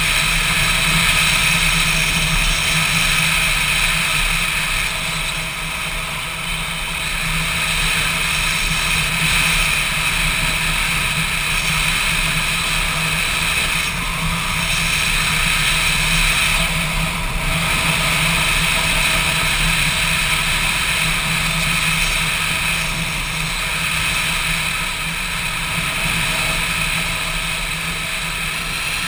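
Motorcycle engine running steadily at road speed, with wind and road noise, picked up by a GoPro mounted on the bike.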